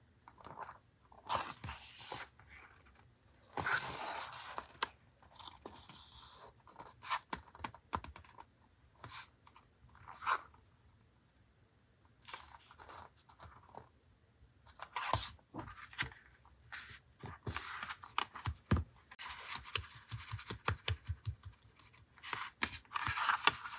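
Paper being handled for journal collage: irregular rustling and scraping of paper, with many small sharp taps and clicks, coming in a quick run of little ticks near the end.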